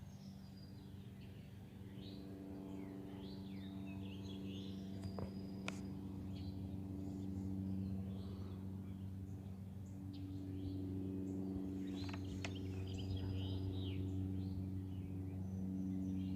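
Several songbirds chirping and trilling, over a steady low mechanical hum that slowly grows louder.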